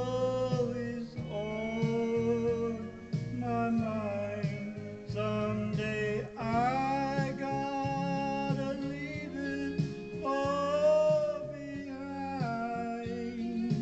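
A man singing a slow country gospel song into a handheld microphone, his voice sliding and wavering on long held notes, over a guitar accompaniment.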